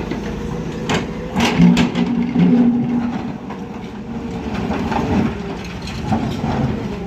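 Diesel engine of heavy construction machinery running steadily, with several sharp metallic knocks in quick succession about a second in.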